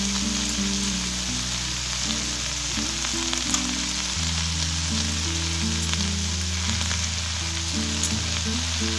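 Chopped spinach sizzling as it fries in a hot pan, with a few faint clicks as a spatula stirs it.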